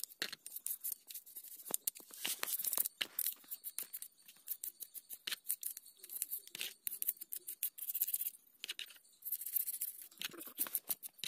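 Small brush scrubbing the petrol-wet main body of a Bajaj three-wheeler carburetor: many short, scratchy strokes at an irregular pace, as dirt is cleaned out of its passages.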